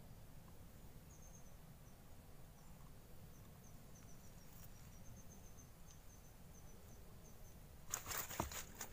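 Quiet open-air ambience with a low wind rumble and a faint string of short high-pitched chirps. Near the end comes a brief burst of rustling and clicking handling noise.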